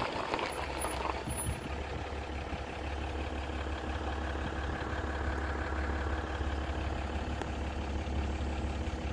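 A vehicle's engine running steadily, a low hum with no change in pitch.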